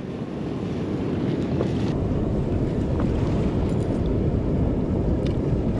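Wind buffeting the microphone over the steady wash of surf, the low rumble growing stronger about two seconds in.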